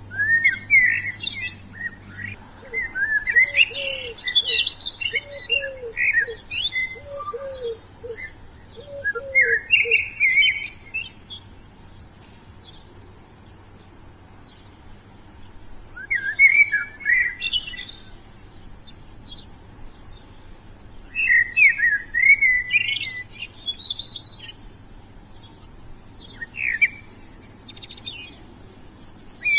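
Wild songbird singing in bouts of fast, high, twittering phrases every few seconds, with short pauses between. In the first third a lower call repeats evenly about once a second beneath the song.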